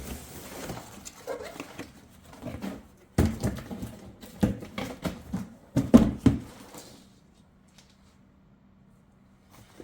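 Contents of a cardboard box being handled during unboxing: irregular knocks, taps and rustling, busiest in the middle, then a quiet stretch with only a faint hum near the end.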